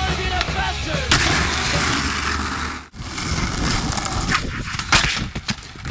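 Skateboard wheels rolling and grinding on rough concrete, with sharp clacks of the board striking the ground about a second in and again near the end.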